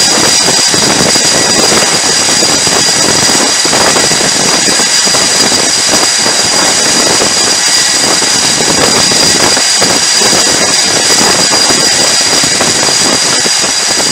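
Jet engines running on an aircraft carrier's flight deck: a loud, steady rush of noise with a constant high-pitched whine on top.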